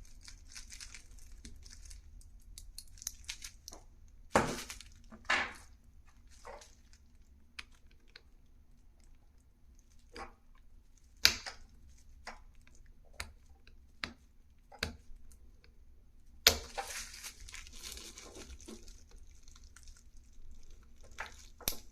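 Scattered sharp clicks and taps as a watch strap is worked back onto the case with a small hand tool, with plastic crinkling and rustling, most of it just after a loud click about sixteen seconds in.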